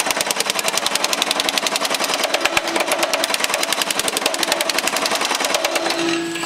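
Baileigh MH-19 power hammer pounding sheet metal in a fast, even run of blows, stopping for about half a second near the end, when only a steady hum is left.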